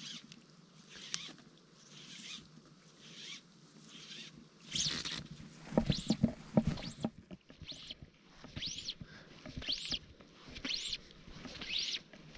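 Fly line zipping through the rod guides as it is stripped in, in rhythmic pulls about once a second, each pull with a rising-then-falling pitch. A cluster of knocks and rustling from handling the rod comes about halfway through.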